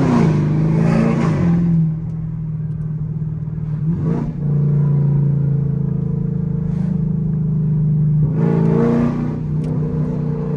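Chevrolet Camaro SS's 6.2-litre V8 running while driving, its pitch rising as it accelerates in the first couple of seconds and again about eight seconds in, holding steady in between.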